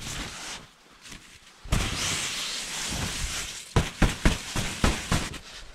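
Heavy snow being cleared off a tent's fabric by hand. Nearly two seconds in, a long rushing hiss of snow sliding off the fly, then several quick slaps and knocks against the fabric to shake the rest loose.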